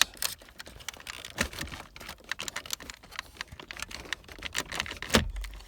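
Rapid, irregular plastic clicking and rattling as wiring connectors are worked loose from behind a Hummer H3's dash trim panel, with one sharper snap about five seconds in.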